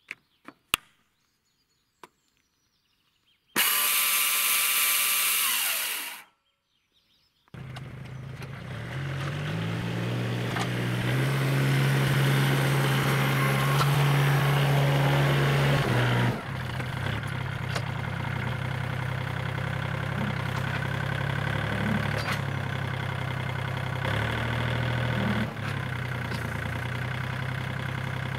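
A few clicks as a red power plug is pushed into a sawmill's switch box, then a loud whirring machine noise for about three seconds that stops abruptly. About seven seconds in, a compact tractor's engine starts, runs up to higher revs for several seconds, then settles into a steady run.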